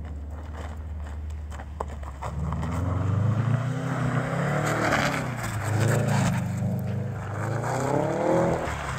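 Subaru hatchback's flat-four boxer engine running low for about two seconds, then revved up and down several times as the car slides and spins on packed snow, with tyres churning and spraying snow.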